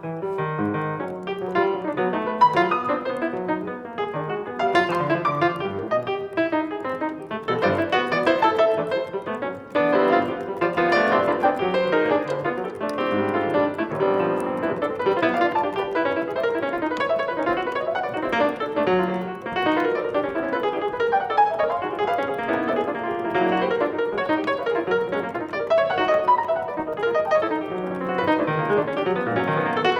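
Solo piano playing a dense, continuous flow of many overlapping notes without a pause.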